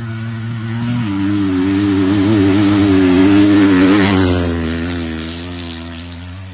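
A motocross bike's engine passing by at speed, getting louder as it approaches, loudest about four seconds in, then fading as the bike rides away.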